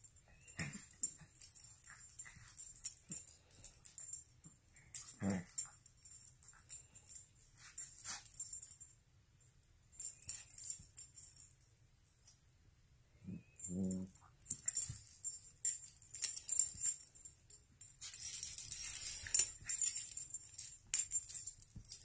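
Two small dogs play-wrestling: scattered rustling and scuffling on a blanket, light jingling of collar tags, and a few brief dog vocalisations, the clearest about fourteen seconds in.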